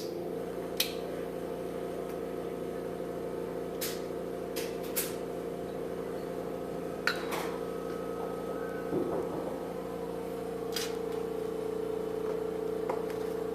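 A steady electric motor hum that starts abruptly and holds an even pitch, with a few sharp clicks and taps over it.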